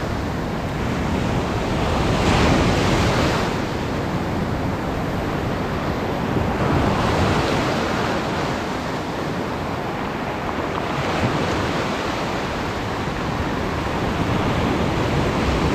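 Sea surf washing on the shore, the wash swelling and easing every few seconds, with wind noise on the microphone.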